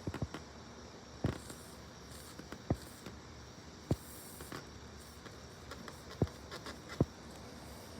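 Needle-nose pliers clicking and scraping against a tire's tread while digging for a nail that went in at a slant: scattered sharp clicks, irregularly spaced, over a faint steady background.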